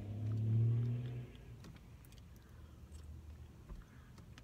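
A woman hums a closed-mouth "mmm" for about a second. After it comes quiet chewing of an açaí bowl, with a few faint clicks from her plastic spoon.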